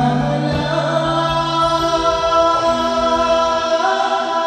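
Live music with singing: long held notes, shifting to new notes twice during the stretch.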